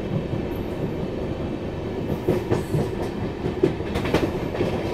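Gatimaan Express coach wheels rumbling and clattering over rail joints and points, heard through an open coach door as the train rolls slowly through a station. Irregular sharp clacks stand out over the steady rumble.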